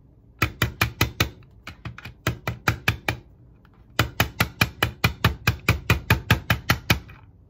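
Quick light taps on a screwdriver held against a model locomotive's motor truck, knocking the truck down into the plastic shell so that it seats. The taps come in three runs with short pauses, the last and longest at about five taps a second, stopping about seven seconds in.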